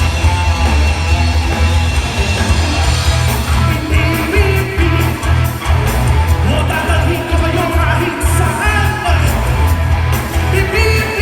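Live rock band playing with electric guitar, bass and drums over a steady beat; a lead vocal comes in about three seconds in and carries on.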